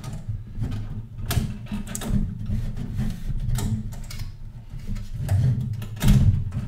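A motherboard being worked into a steel PC case: repeated clicks, knocks and scrapes of the board and its coolers against the case and the I/O shield as it is pushed into place, with the loudest knock near the end.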